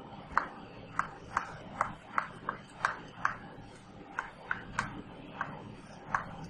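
Chalk tapping on a blackboard as numbers are written: a string of short, sharp taps, two or three a second, unevenly spaced.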